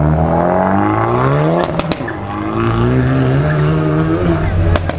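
Car engine revving hard. Its pitch climbs for about a second and a half, breaks with a few sharp cracks, drops, then climbs again.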